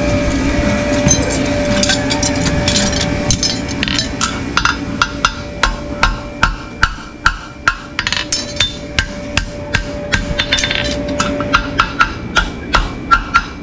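Farrier's hammer striking metal in a quick, steady rhythm of ringing blows, about three a second, starting about four seconds in.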